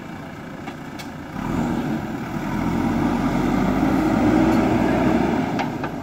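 JCB 3DX backhoe loader's diesel engine running, rising sharply in revs and load about a second and a half in, holding high for several seconds, then easing off near the end.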